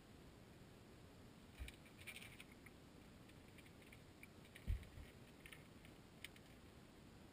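Faint underwater clicks and taps heard from a camera submerged among a dense school of spawning salmon, with a low knock about a second and a half in and a louder knock a little before the five-second mark.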